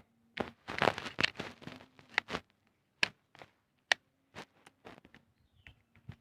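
Sticky slime being handled and pulled, giving off irregular small clicks and crackles, close together for the first two seconds or so, then only a few scattered ones.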